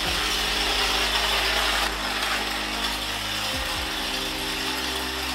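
Small DC motor of a homemade soda-can toy locomotive running steadily, driving its wheels through pulleys as it rolls across a tile floor.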